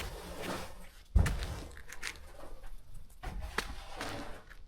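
Footsteps crunching in snow with rustling, and a dull thump about a second in.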